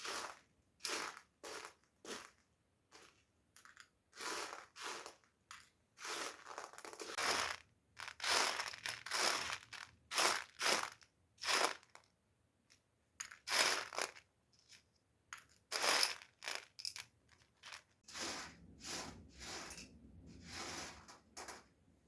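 A string of irregular crunching strokes, about one or two a second, some short and some drawn out.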